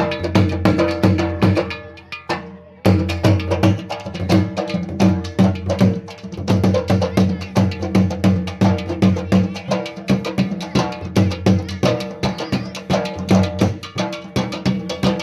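Dhol, the double-headed Punjabi barrel drum, beaten in a fast, steady rhythm. The beat drops away briefly about two seconds in and comes back under a second later.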